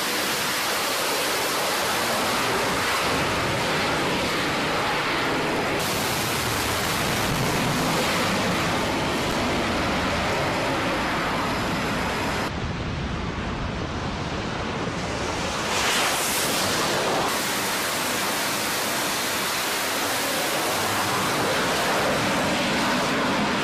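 F/A-18 Super Hornet jet engines running at high power for catapult launches from a carrier flight deck: a loud, steady rushing noise. It changes abruptly several times, dropping briefly around 12 to 15 seconds in and swelling for a moment around 16 seconds in.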